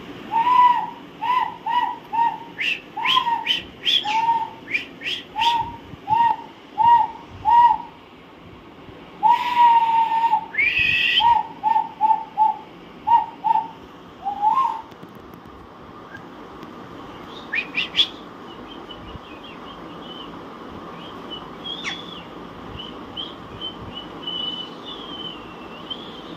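Alexandrine parakeet giving a run of short whistled calls, about one and a half a second, each dipping slightly at the end, with a short pause about eight seconds in and a longer call about nine seconds in. After about fifteen seconds the calling stops, leaving a couple of sharp clicks and faint high chirps.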